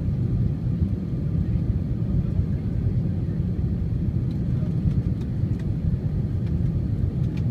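Steady low rumble of cabin noise inside an Airbus A320-232 airliner in flight: its IAE V2500 turbofan engines and the airflow over the fuselage, heard from a window seat over the wing.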